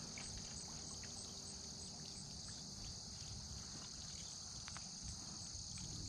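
Steady high-pitched insect chorus, with a faint regular pulse above it, over a low rumble.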